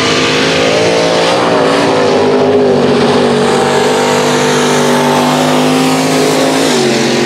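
Mud-racing pickup truck engines running hard at high revs as the trucks race across a dirt track, the pitch holding steady and then dropping just before the end.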